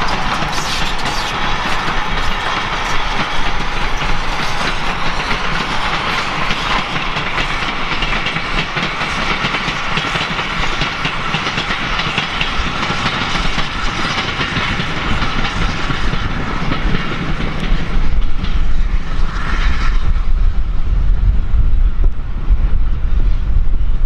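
A steam-hauled train of vintage coaches passing, its wheels beating a steady clickety-clack over the rail joints that fades away as the last coach goes by. Near the end a low rumble rises and becomes the loudest sound.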